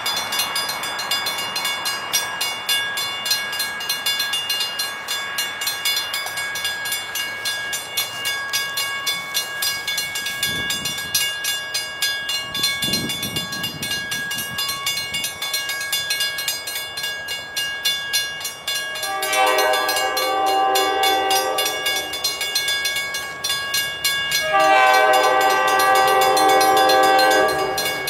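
Railroad crossing bell ringing steadily at an active grade crossing, joined by an approaching diesel freight locomotive's horn sounding two long blasts, the first about two-thirds in and the second, louder one near the end.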